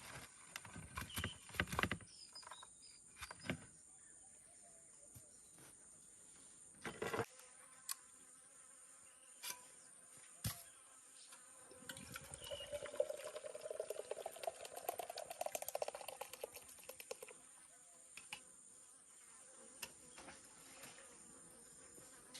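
Steady high-pitched insect chorus, with scattered knocks and clicks. A closer buzz rises and fades in the middle.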